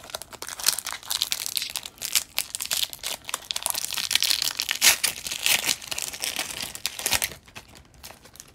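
Foil wrapper of an O-Pee-Chee Platinum hockey card pack being torn open and crinkled by hand: a dense, crackly rustle of foil that stops about a second before the end.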